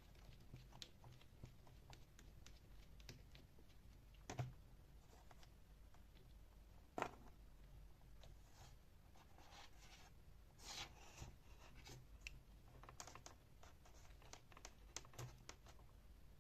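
Quiet handling noises at a workbench: scattered light clicks and scrapes of small parts being handled, with two sharper knocks about four and seven seconds in.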